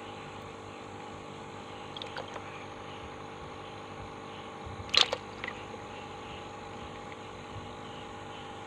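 Hand moving through shallow water in a plastic bucket of dwarf snakehead fish: faint small splashes and clicks, then one short sharp splash about five seconds in with a smaller one just after, over a steady background hum.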